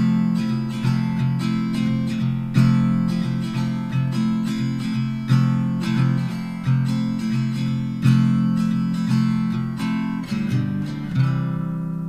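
Background music: acoustic guitar strumming chords in a steady rhythm, with a last chord about eleven seconds in left to ring out.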